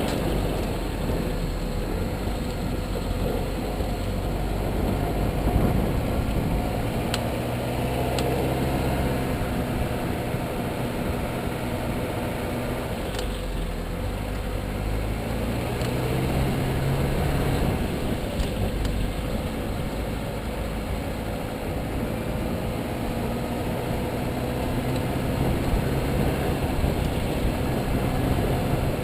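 Car being driven: steady engine and road noise, with the engine note rising and falling, and a few faint, sharp clicks.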